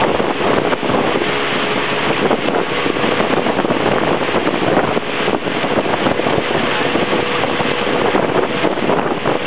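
Motorboat travelling along a river: a steady motor hum under a constant rush of wind on the microphone and water.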